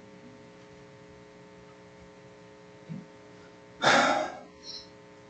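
Steady electrical hum on the recording, with one short breathy exhale about four seconds in.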